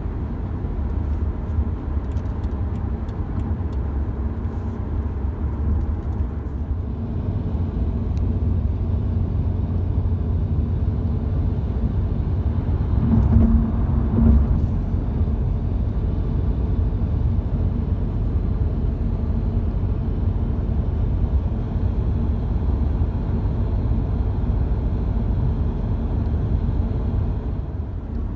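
Car driving on the road, heard from inside the cabin: a steady low rumble of tyres and engine, with a brief louder swell about halfway through.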